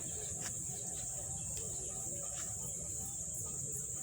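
Insects, crickets by their sound, chirring in one steady high-pitched drone, over a low rumbling background noise with a few faint clicks.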